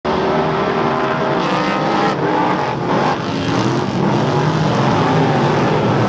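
Several speedway Superstock race cars with V8 engines running hard on track at once. Their engine notes rise and fall in pitch as they accelerate and pass.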